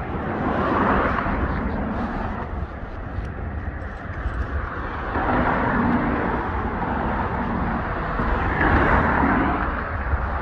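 Road traffic passing, its noise swelling and fading three times over a steady low rumble.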